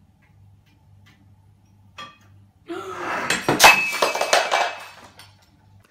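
A white ceramic bowl pulled off a kitchen counter by a cat crashes onto a hard floor and breaks, with dry cat food scattering. A light knock comes about two seconds in, then the crash and clatter last about two and a half seconds.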